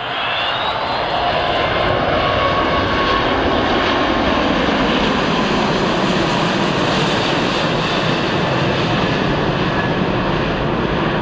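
Airbus A380 airliner's four jet engines during a low display pass, a loud, steady jet noise that swells over the first second or two and then holds. Faint whining tones drift in pitch within it early on.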